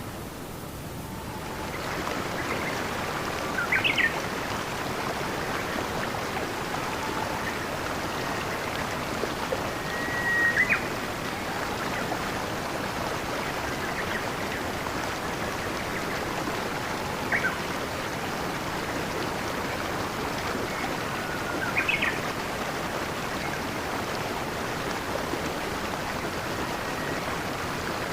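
Steady rush of flowing stream water, with a bird chirping briefly four times, each call a short high note.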